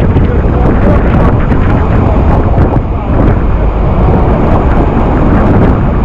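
Loud, steady rushing of falling water and spray at the Iguazu waterfall, with wind buffeting the microphone as the tour boat runs into the falls.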